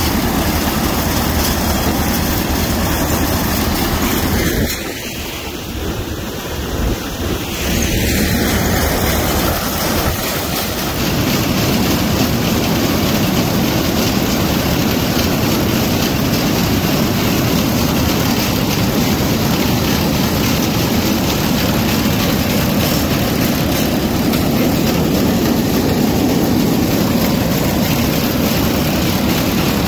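John Deere two-cylinder tractor running steadily under load while pulling a one-row corn picker, its running mixed with the picker's snapping rolls and ear elevator working. The noise dips briefly about five seconds in, then runs on evenly.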